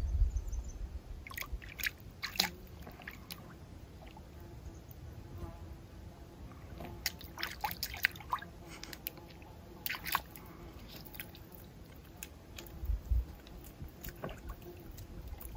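Golden retriever lapping water at a lake's shallow edge: short wet laps and splashes in a couple of bursts, one a second or two in and a longer run around the middle.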